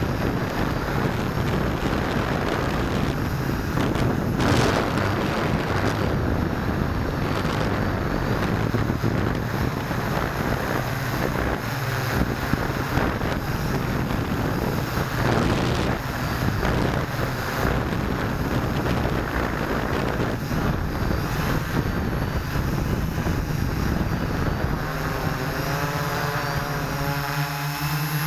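S650 hexacopter's motors and propellers droning steadily, heard from a camera on the airframe, with wind rushing over the microphone. About three seconds from the end the wind noise thins and the motors' steady tones stand out more clearly.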